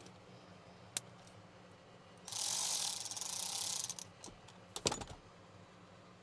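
Hand ratchet wrench cranked rapidly for about a second and a half, as when spinning a bolt out. A single click comes before it, and a few sharp knocks follow about five seconds in.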